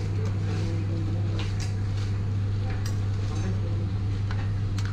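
Cashews deep-frying in hot oil in an iron kadai, hissing, while a metal skimmer stirs them and clinks against the pan several times. A steady low hum runs underneath.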